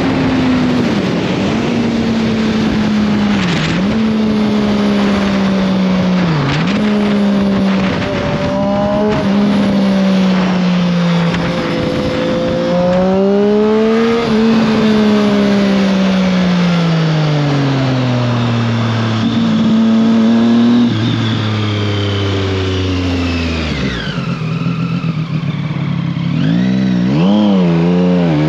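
Triumph Street Triple 765 RS three-cylinder engine under way. Its pitch dips briefly three times in the first seven seconds, then falls as the revs come down. Near the end it wavers quickly before climbing again.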